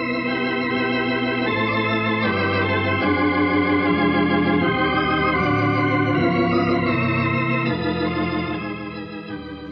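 Organ music bridge of sustained chords that change every second or so, fading near the end; it marks a scene change in the radio drama.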